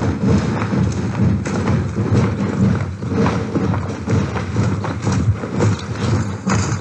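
Loud, dense rhythmic thumping with a low rumble, which cuts off suddenly near the end.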